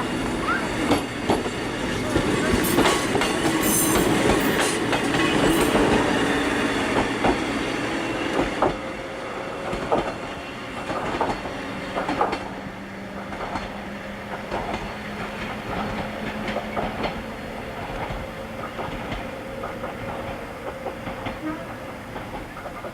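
Ex-Tokyu 5000 series electric train pulling away under power, its wheels clicking over rail joints. As it gets farther off, the running noise fades and a steady whine from its right-angle cardan drive gearing carries on underneath.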